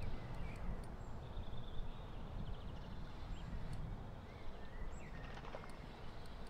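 Outdoor ambience by a pond: faint birds chirping now and then, with a short trill, over a steady low rumble.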